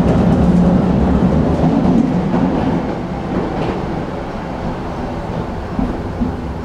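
Tram running along its track, heard from inside the car: a steady rumble of wheels on rail, growing quieter about halfway through.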